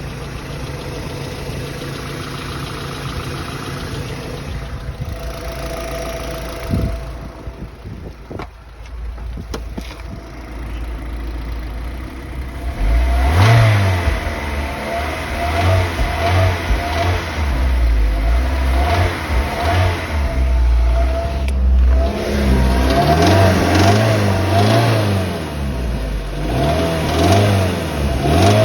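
2008 Mazda MX-5 Miata (NC) four-cylinder engine idling steadily for about twelve seconds, then revved up and down repeatedly. It is running with a knocking noise.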